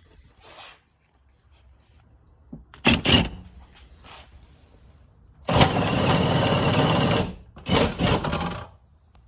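A hand-held power tool running in three bursts: a short one, one held for nearly two seconds, and another short one.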